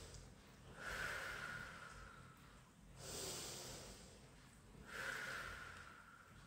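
A woman's slow, deep breathing through a held stretch: long breaths drawn in and let out, about two full breaths, each swell lasting around two seconds.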